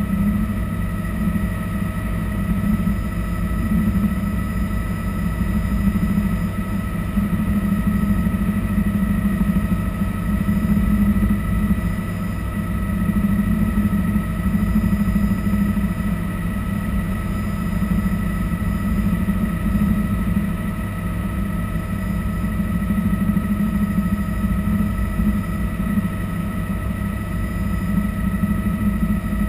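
Bell 206 JetRanger helicopter heard from inside the cabin in cruise flight: a loud, steady rotor and turboshaft engine drone with a thin, steady high whine over it.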